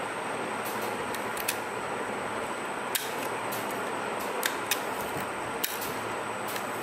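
A few sharp small clicks and ticks of parts and tools being handled while a DSLR camera is taken apart, over a steady background hiss.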